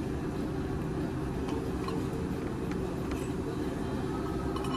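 Steady low background hum of restaurant room noise, with a few faint clicks.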